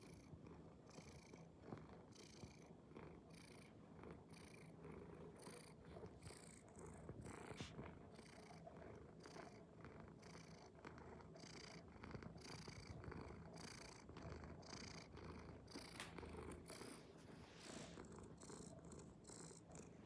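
A domestic cat purring softly and steadily, with a regular rise and fall.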